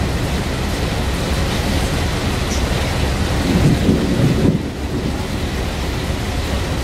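Thunder rumbling over a steady rush of rain and wind noise, swelling loudest about three and a half seconds in, then dropping away suddenly about a second later.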